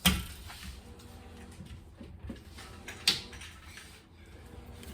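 Two sharp knocks, one right at the start and one about three seconds in, from kitchen items being handled, with quiet room tone between.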